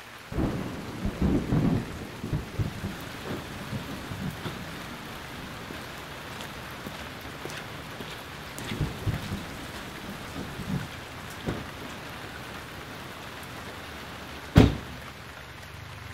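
Steady rain with rolling thunder, rumbling in the first few seconds and again around nine seconds in, and a single sharp thunderclap near the end.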